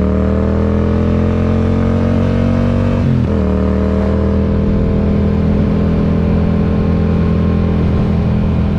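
Yamaha MT-07's parallel-twin engine under way, its pitch climbing gently as it accelerates, then dropping sharply about three seconds in at an upshift and settling into a steady cruise. Heard through a camera mic with a foam wind cover, so the exhaust note stands clear of wind noise.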